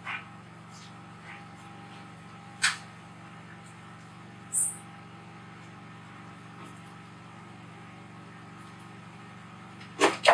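Steady low hum of room tone with faint short clicks and a brief hiss, then two sharp clinks near the end, the loudest sounds, as a steel cooking pot on a gas stove is handled.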